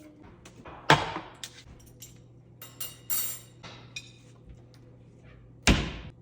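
Household handling sounds: a loud knock about a second in and another near the end, with lighter clicks and glassy clinks in between.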